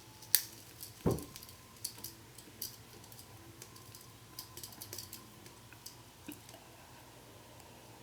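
Scattered faint clicks and light taps, with a sharp click about a third of a second in and a low thump about a second in.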